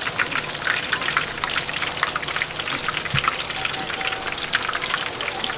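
Battered food deep-frying in hot oil: a dense, steady crackle and sizzle.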